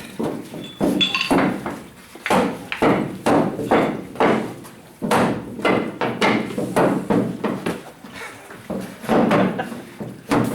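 Repeated sharp knocks, about two a second, each ringing briefly, from work on a dented steel pickup bedside.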